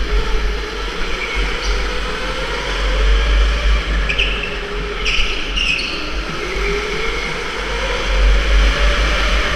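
Indoor electric go-kart running flat out round the track, its motor whine rising and falling with speed through the corners, over heavy wind rumble on the onboard camera. A few short tyre squeals come about four to six seconds in.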